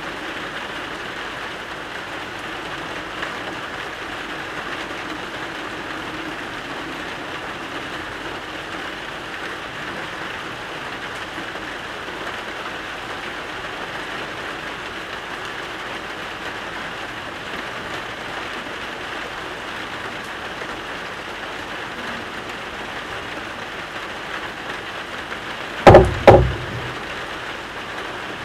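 Steady rain falling, an even hiss that does not change. About two and a half seconds before the end, two loud knocks come in quick succession, louder than the rain.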